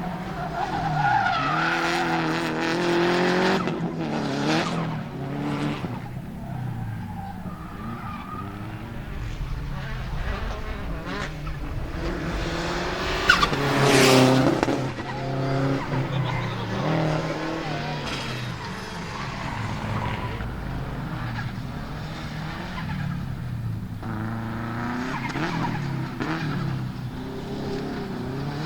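Subaru Impreza GC8 Group A rally car's turbocharged EJ20 flat-four engine revving hard and rising and falling through the gears, with turbo flutter and a few sharp cracks; loudest about 14 seconds in.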